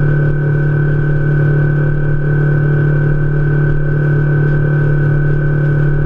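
Outboard motor of a fishing boat running at a constant cruising speed: a steady drone with a thin, steady whine above it.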